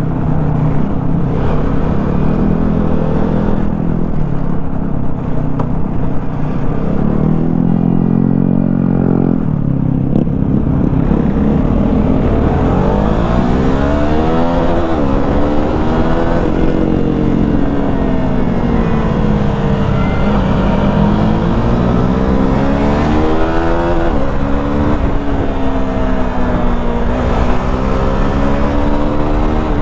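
KTM 390 motorcycle's single-cylinder engine running under way, its pitch rising and falling again and again with the throttle from about twelve seconds in, over a steady low rumble.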